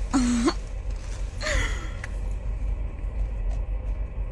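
Steady low rumble of a Hyundai i30 idling, heard from inside the cabin in stopped traffic. A woman makes two short wordless vocal sounds near the start, the second falling in pitch.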